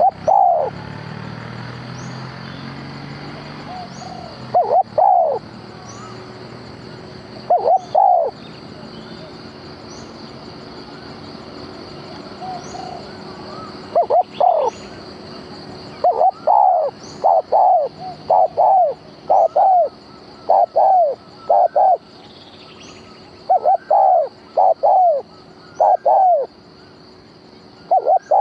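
Decoy dove cooing: short curved coo notes, a few spaced ones at first, then from about halfway in quick runs of coos repeated in groups.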